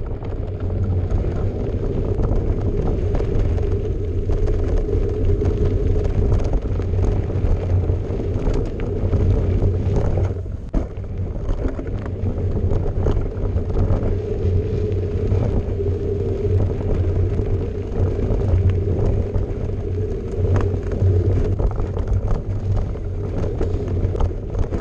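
Mountain bike rolling along a dirt and rock singletrack: steady rumble of knobby tyres on the trail, with small knocks and rattles from the bike over rocks. A brief lull comes about ten seconds in.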